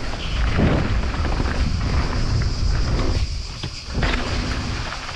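Wind buffeting a mountain biker's action-camera microphone as the bike rolls fast down a dry dirt trail, a continuous low rumble with tyre noise and the odd sharp click from the bike. The rumble eases for a moment about three seconds in.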